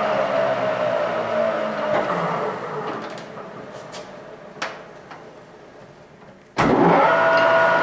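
Goodway GW1660 lathe spindle and gearhead winding down after being switched off, its whine falling in pitch and fading over two or three seconds, with a single click partway through the quiet that follows. Near the end the spindle is started again and spins up to a steady whine within about half a second.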